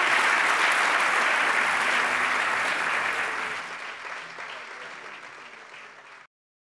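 Audience applauding, dying away over the last few seconds and cutting off suddenly near the end.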